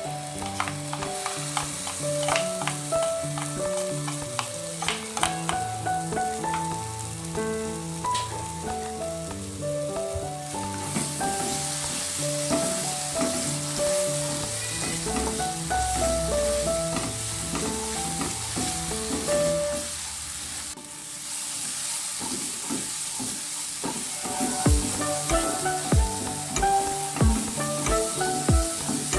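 Food sizzling as it fries in oil in a pan and is stirred, the hiss growing stronger about a third of the way in. Near the end a spatula knocks repeatedly against the pan. Gentle instrumental background music plays under the sizzling for the first two-thirds.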